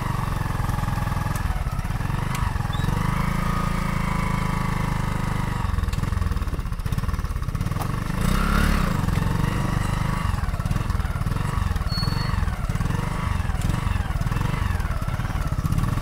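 A vehicle engine running steadily close by, a low, even drone.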